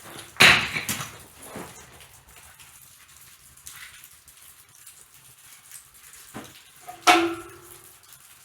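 A loud clatter about half a second in, a few lighter knocks, and a short pitched yelp near the end.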